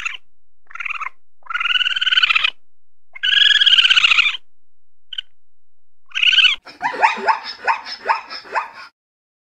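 A series of high-pitched animal calls, each lasting half a second to a second with pauses between, then a different animal making a quick run of short yips or barks, about three a second, that cuts off abruptly.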